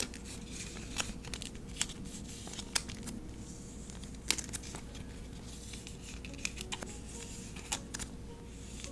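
Thin clear plastic binder sleeves crinkling and rustling as strips of kiss-cut masking tape are slid into their pockets, with scattered small clicks and crackles.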